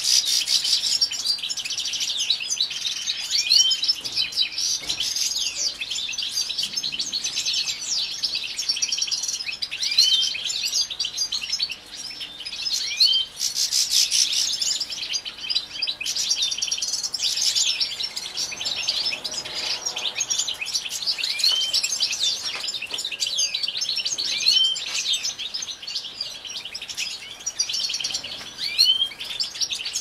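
European goldfinch song: a continuous, rapid twittering of chirps and trills with many short rising notes, pausing briefly about twelve seconds in.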